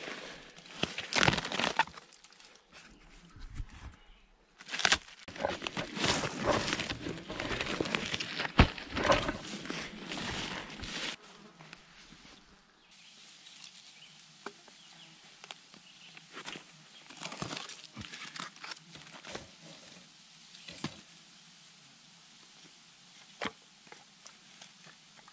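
Footsteps pushing through leafy undergrowth, with loud rustling, brushing and crunching for about the first eleven seconds. After that comes a quieter steady outdoor hiss with scattered light clicks and taps as sticks and a birch-bark log are handled.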